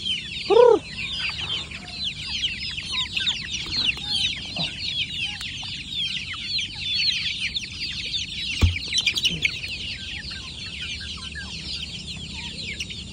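A flock of free-range kampung chickens, many of them young birds, peeping continuously in short, high, falling chirps. One louder, lower call comes about half a second in, and a single sharp knock comes about two-thirds of the way through.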